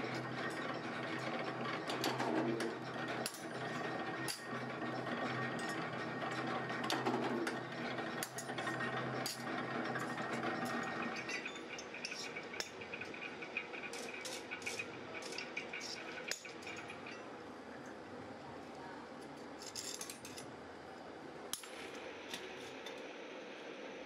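Power press running with a steady motor hum and sharp metal knocks as parts are punched, then the hum drops away about halfway and only scattered light metal clinks remain as steel latch bolts and plates are handled.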